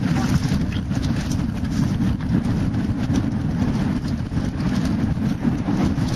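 Heavy wind rumble on a helmet camera's microphone as a mountain bike descends a dirt trail at speed, with scattered clicks and knocks of the bike over rough ground.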